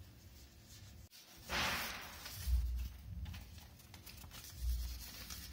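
Soft rustling of paper and plastic sheeting as silver-leaf (varq) sheets are laid and their backing paper is peeled away, with a short crinkly rustle between about 1.5 and 2 seconds in. Two dull low bumps follow from hands pressing on the surface.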